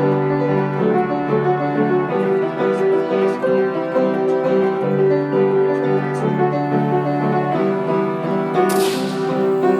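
Keyboard music with piano tones playing a steady, repeating figure. Near the end, a single sharp bang cuts through and fades out.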